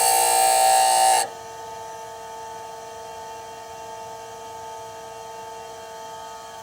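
Grinder grinding a drill bit's point for about the first second, a hissing grind, while the web thinning is put on the chisel edge. The bit is then lifted away and the grinder runs on alone with a steady hum.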